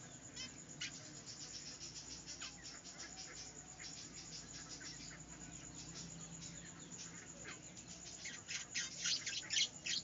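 Several budgerigars chattering in quick, short high chirps, getting louder and busier near the end.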